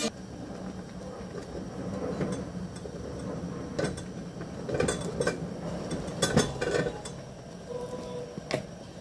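A plastic spoon knocks and scrapes against a cooking pot and a plastic food processor bowl as chunks of boiled yam are moved into the bowl. Scattered clacks and soft thuds, several in the second half, sound over a steady low hum.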